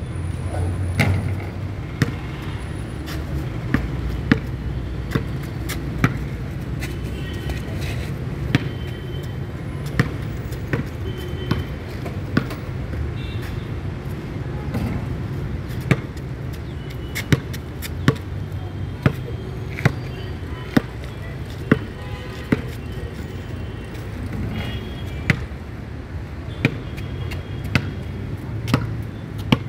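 Basketball bouncing on a hard outdoor court: sharp thuds at irregular intervals, with a steady dribble of about one and a half bounces a second in the middle, over a steady low rumble of traffic.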